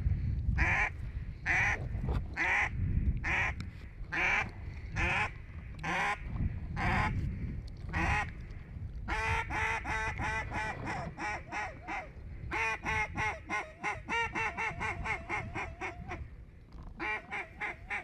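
Goose calling: a steady series of single honks about one a second, then from about halfway fast runs of short clucking calls several a second. Wind rumbles on the microphone.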